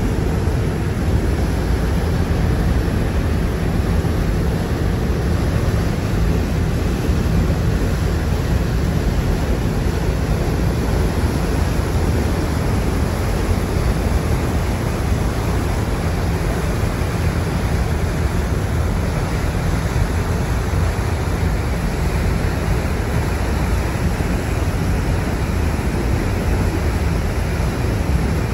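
Steady rushing noise of wind buffeting the microphone over the churning wake of a ferry under way, with a constant low rumble underneath.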